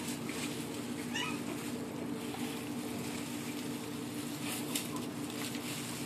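French bulldog puppy giving one short whimper that bends in pitch about a second in, over a steady low hum. A few soft rustles come near the end.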